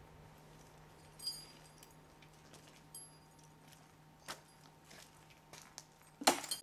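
Metal fittings of a horse's harness and bridle jingling and clinking as they are handled, with a few sharp knocks and a louder clatter near the end.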